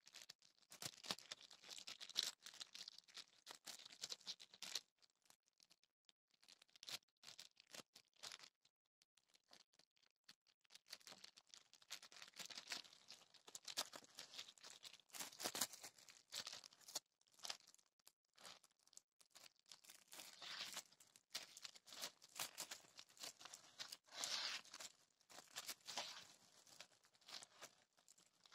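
Clear plastic wrapping of a sealed bag crinkling and crackling softly as a hand grips and turns it, in irregular bursts with short pauses.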